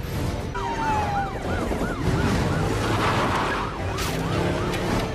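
Police sirens yelping, a rapid rise and fall in pitch about four times a second, over a low rumble.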